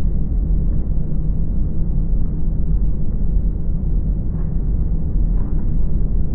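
Steady low drone of a tugboat's diesel engines under way, heard from inside the boat, with a couple of faint clicks of small tackle packages being handled about four and five seconds in.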